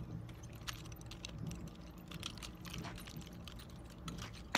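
Faint, scattered clicks and rattling from a pair of wooden nunchucks with a metal chain being swung, with one sharper knock near the end.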